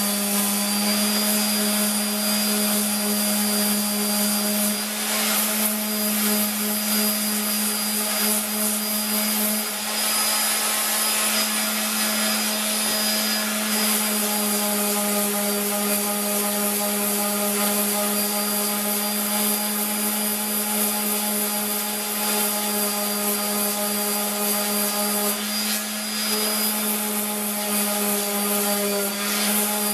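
An electric power tool's motor running steadily without a break, a constant hum with hiss and only small shifts in pitch.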